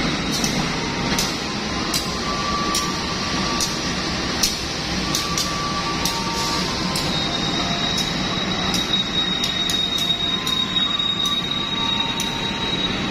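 Diesel locomotive of a standing passenger train running at idle, a steady rumble, with a thin high whine that sets in about halfway through. Sharp ticks are scattered throughout.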